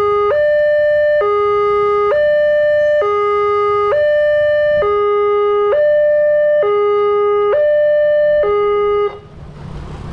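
Railway level-crossing warning alarm sounding its loud two-tone electronic signal, alternating between a lower and a higher tone, each held just under a second. It cuts off suddenly about nine seconds in, after the barrier arm has lifted to reopen the crossing, and motorbike and road traffic noise follows.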